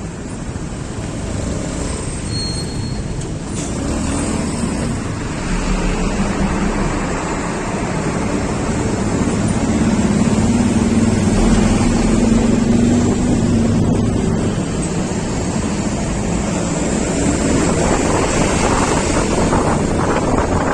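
Road traffic noise heard from a moving vehicle: a steady engine hum with road and wind rush, getting louder around the middle.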